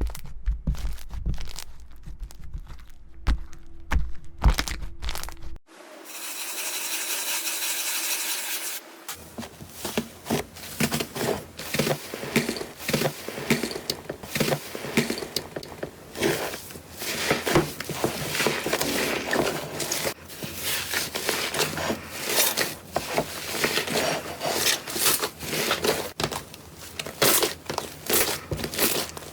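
Slime being handled and squeezed, heard as ASMR close-up. It starts with scattered sharp clicks and pops. About five seconds in it turns to a few seconds of steady fine crackling hiss, then to dense crackling and popping, typical of crunchy slime.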